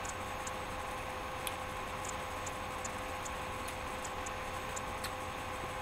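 Faint regular ticking, about two ticks a second, over a steady electrical hum.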